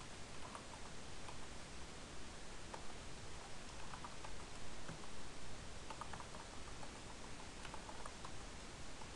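Computer keyboard keys being typed in short bursts of faint clicks, a few keystrokes at a time, over a steady hiss.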